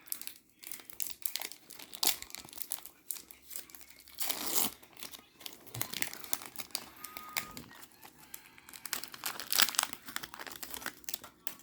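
Foil wrapper of a Pokémon booster pack crinkling as it is handled and opened, in irregular rustles and small crackles, loudest about four and a half and nine and a half seconds in.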